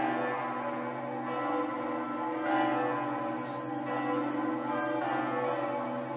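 Bells ringing in a slow sequence, a new strike about every second and a quarter, each note ringing on under the next.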